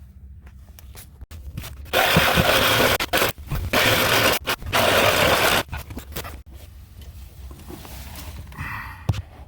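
Loud, rough scraping noise in a few long stretches about two seconds in, then quieter handling noises and clicks.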